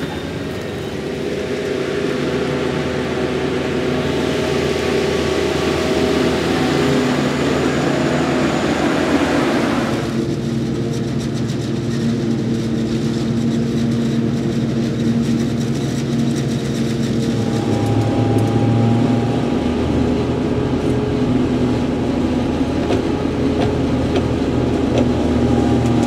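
Diesel engines of a Fendt tractor hauling a silage trailer and a forage harvester running steadily under load during the maize silage harvest. For the first ten seconds a loud rushing hiss lies over the steady engine drone; it cuts off abruptly about ten seconds in, and the engine sound shifts again near eighteen seconds.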